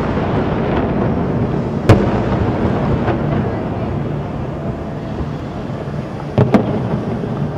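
Aerial fireworks shells bursting: a single bang about two seconds in and two more in quick succession near the end, over a steady background rumble of noise.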